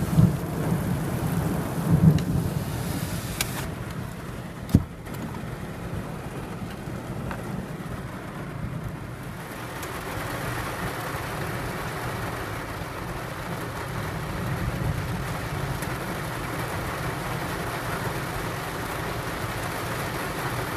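Heavy rain falling on a car, heard from inside, with a low rumble of thunder in the first couple of seconds and a single sharp knock about five seconds in.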